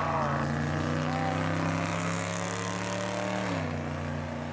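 1974 Ford F100 pickup's engine running at a steady pitch as the truck drives off down the drag strip after a burnout, the note dropping a little about three and a half seconds in.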